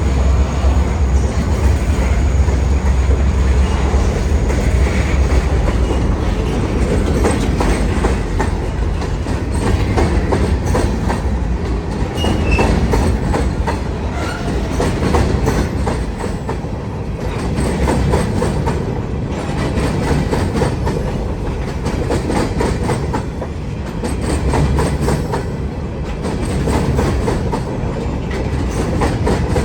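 Wheeling & Lake Erie freight train rolling past, its cars' wheels clicking steadily over the rail joints over a continuous rumble. The low rumble is heavier for the first several seconds.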